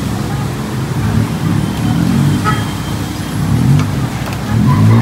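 Street traffic: a low steady rumble with the engines of passing motor vehicles rising and falling in pitch, loudest near the end.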